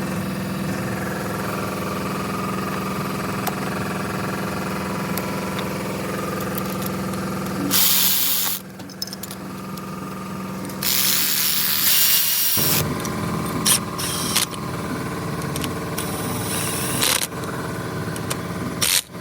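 Power tool running in long steady stretches, broken by two louder noisy bursts about eight and eleven seconds in, with scattered clicks near the end.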